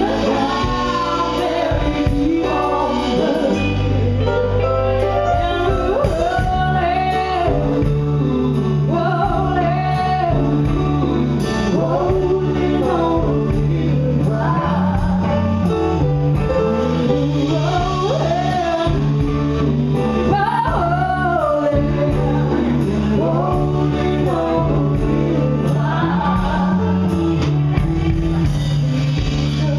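Live soul band performing a song: lead and backing vocals sung into microphones over drums, bass and horns, amplified through the venue's PA.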